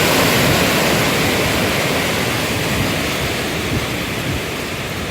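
Hurricane wind and surf: a loud, steady rush of noise with wind buffeting the microphone, easing a little toward the end.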